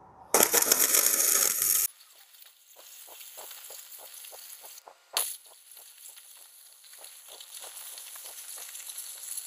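Flux-core wire-welding arc on thick steel plate, with the wire fed fast at about 472 inches a minute and 21 volts. A loud, steady crackle lasts about a second and a half. It then goes on as a fainter, quicker crackle of spitting ticks while the bead runs at 8x speed, with one sharp pop about five seconds in.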